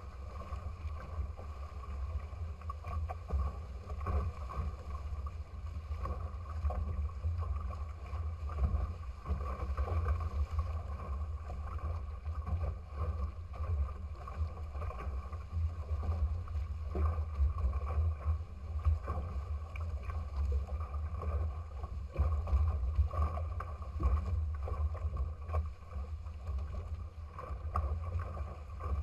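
Wind buffeting the microphone in a steady low rumble, with water rushing and splashing past the hulls of a small sailing trimaran under way.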